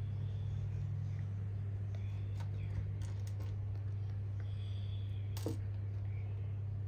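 A steady low hum with a few faint, scattered clicks on top, the sharpest about five and a half seconds in.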